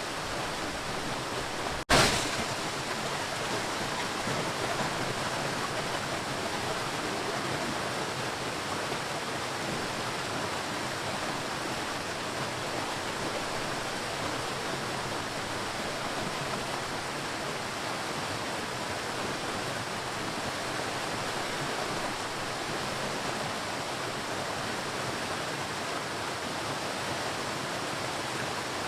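Ocean surf washing steadily, an even rushing noise without distinct breaks between waves. About two seconds in, the sound cuts out for an instant and comes back with a sudden louder surge.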